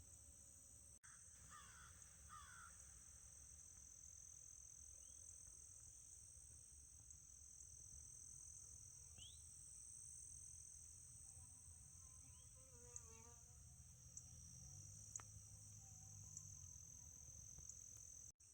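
Faint night insect chorus: a steady, high-pitched shrill of crickets or similar insects, with a few short faint chirps over it and a low hum underneath.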